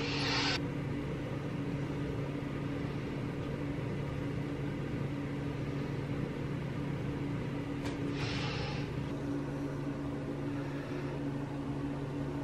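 Steady low mechanical hum in a small room, with two short hissy swishes, one right at the start and one about eight seconds in.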